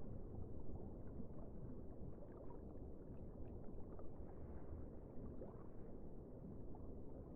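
Steady low watery rumble of the sea, with a few faint short squeaks and a faint rising call about five seconds in.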